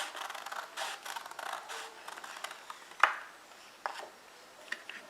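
Scissors cutting through a paper card: a run of quick snips with the paper rustling, then a few separate light clicks in the second half.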